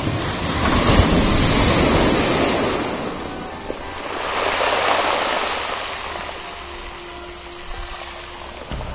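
Sea waves surging in and washing over stone steps and a pebble shore, in two swells: a loud one over the first three seconds and a smaller one around five seconds in, then easing off.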